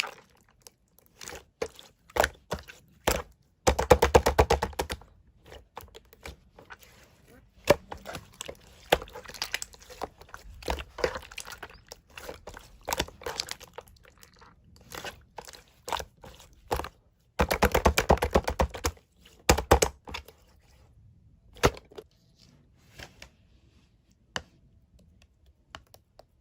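Close-up handling sounds of paper-like material: scattered taps, crackles and small tears, with two quick runs of rapid clicking, about four and eighteen seconds in, like something being peeled or ripped.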